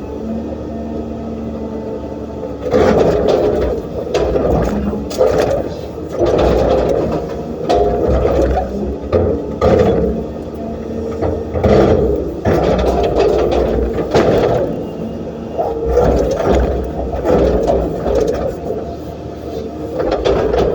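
Cat 320D excavator's diesel engine working under load, swelling and easing every second or two, with scrapes and knocks of stone and sand.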